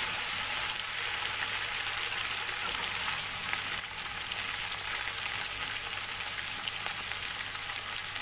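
Chopped tomatoes frying in hot oil with browned onions, cumin and ginger, a steady crackling sizzle as the tomatoes are fried down for the masala.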